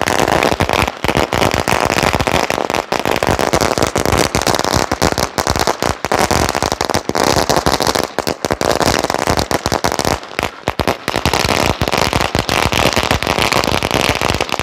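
A 10,000-cracker string (ladi) of Standard-brand firecrackers going off in a rapid, unbroken chain of bangs as it burns along its length.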